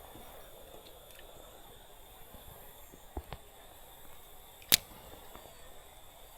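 Fishing rod and reel handled during a cast: two small clicks a little after three seconds in, then one sharp click nearly five seconds in, over a faint steady outdoor background.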